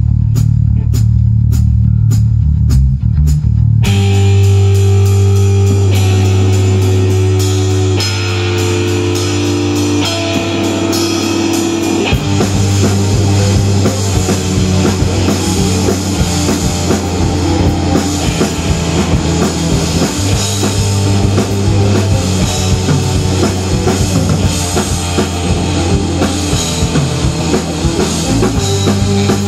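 Live rock band playing an instrumental passage on electric guitars, bass guitar and drum kit. A bass line with a steady ticking cymbal pattern opens, and the full band comes in about four seconds in.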